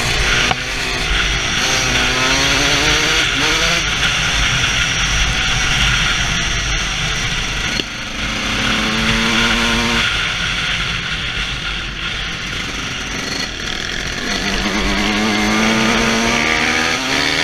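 Dirt bike engine running under way, its pitch climbing and dropping again and again as the throttle is worked and gears change, with heavy wind rush over a helmet-mounted camera.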